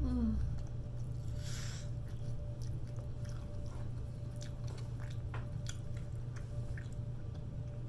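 A person chewing food with the mouth close to the microphone: scattered small wet clicks and one longer noisy smack about one and a half seconds in. A steady low hum runs underneath.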